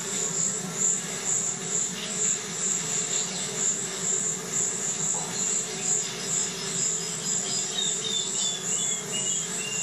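Insects trilling in a steady high chorus that pulses about twice a second, over a low steady hum. A few short falling chirps come near the end.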